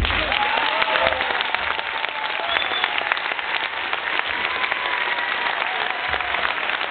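Audience applauding steadily, with a few voices calling out in the crowd.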